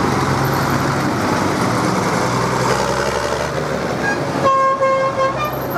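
Ford farm tractor's engine running as it drives past, then vehicle horns honking in a few short toots from about four and a half seconds in.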